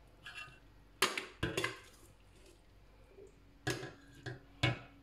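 Metal spoon knocking against steel cookware while chicken and mixed vegetables are spooned onto rice in a stainless steel pot. A couple of sharp clinks come about a second in, and three more near the end.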